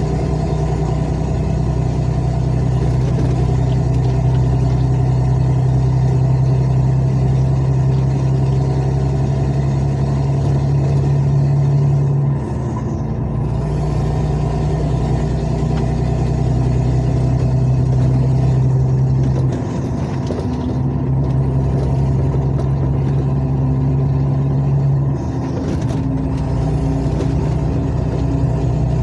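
Truck engine running steadily at a low hum, dipping briefly and picking up again three times.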